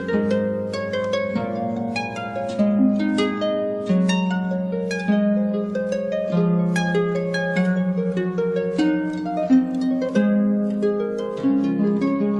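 Background music: plucked strings play a gentle melody of ringing, fading notes over sustained low notes.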